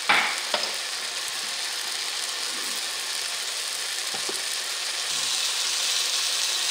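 Tomato and onion sauce sizzling in a nonstick wok over medium heat, a steady hiss, with two short clicks just after the start.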